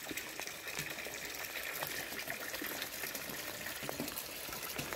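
Rain falling steadily on a garden pond's surface, many small drop ticks over a steady gush of water running into the pond.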